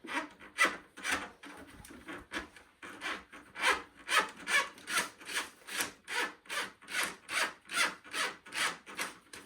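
Rhythmic back-and-forth scraping, about two to three strokes a second, as a tool is worked up and down inside a refrigerator's clogged defrost drain to clear it.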